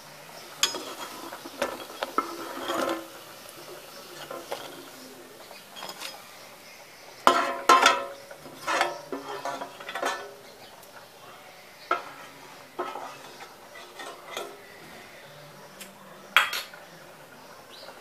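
Metal spatula knocking and scraping against a steel frying pan as fried dal vadas are lifted out of the oil: scattered clinks and scrapes, busiest about seven seconds in, with a sharp knock near the end.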